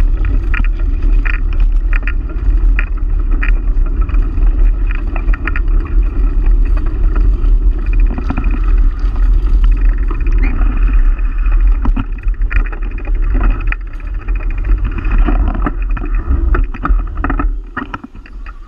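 Rumble of a moving bicycle heard on its camera's microphone: wind buffeting and tyres rolling over a gravel trail, with scattered crunches and rattles. It drops away near the end as the bike stops.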